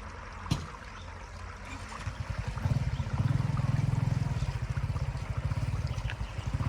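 Floodwater draining away, trickling and running. About two seconds in, a louder low gurgling rumble builds up. There is a single sharp click about half a second in.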